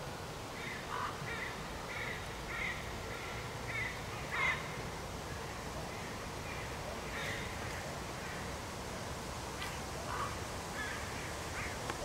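Short bird calls in quick series, about eight in the first four and a half seconds, then a few scattered ones later, over a steady background hiss.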